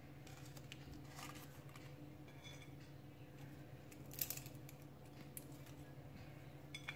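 Quiet room with a low steady hum and a few soft taps, one about a second in and a clearer one about four seconds in, as whole spices (bay leaves, cloves, mace) are dropped onto rice in a steel pressure cooker.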